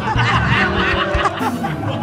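Studio audience laughing over background music.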